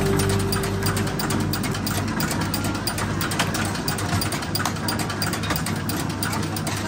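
A small food-processing machine running steadily: its chain-driven gears and toothed rollers make a rapid, even clatter of clicks over a low motor hum.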